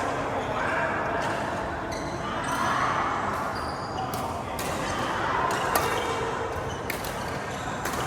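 Badminton rally: sharp racket strikes on the shuttlecock and footfalls on the court, coming irregularly about once a second, over a murmur of voices in a large hall.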